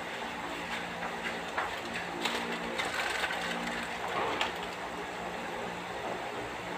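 Electric stand fan running with a steady whir and a low motor hum. A few brief clicks and chirp-like sounds come in the middle.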